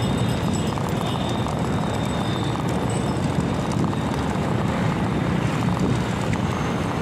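Steady low rumble of wind buffeting the microphone on a moving bicycle, with the bike rolling over brick paving.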